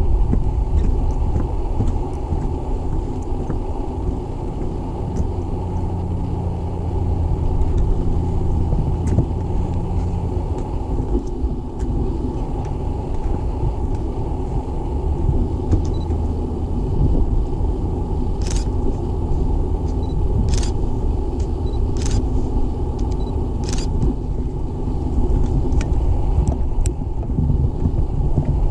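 Steady low rumble of wind buffeting and handling noise on a walking action camera. A faint low hum comes through briefly in the first third, and a few sharp ticks come about two-thirds of the way through.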